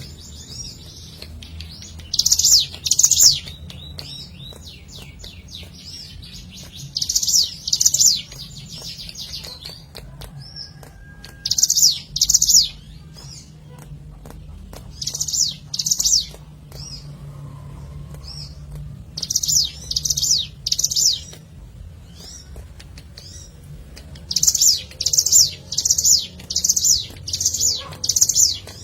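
Ciblek gunung, a small prinia, singing: loud phrases of two or three rapid, sharp, high notes repeated every few seconds, with a longer run of about six notes near the end.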